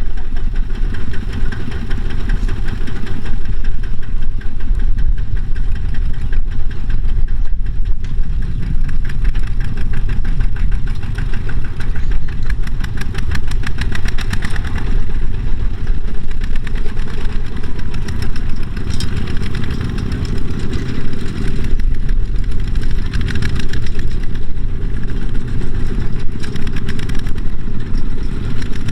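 Kubota farm machine's diesel engine running steadily and loudly at a constant speed, with a fast, even firing beat.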